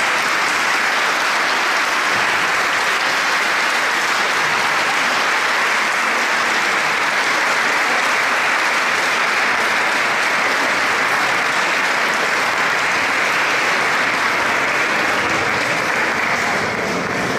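Audience applauding: steady, sustained clapping from a large seated crowd, easing slightly near the end.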